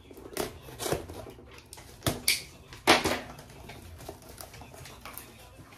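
Objects from an opened parcel being handled: about five light knocks, clinks and rustles, the loudest about three seconds in.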